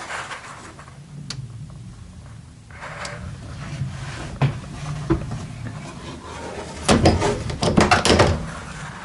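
Window of a 1957 travel trailer being worked open and shut, with faint knocks early on and a loud run of clattering knocks and scrapes about seven to eight seconds in.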